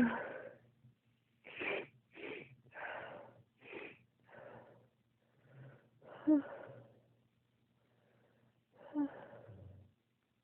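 A woman in a sneezing spell: a loud sneeze at the start, a run of quick gasping breaths, then two more sneezes about six and nine seconds in. These are the intense cold-triggered sneezes that she says come on when her bare toes get cold.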